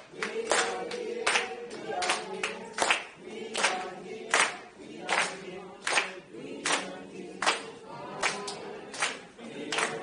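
A group of people singing together unaccompanied, with hand claps keeping a steady beat of a little more than one clap a second.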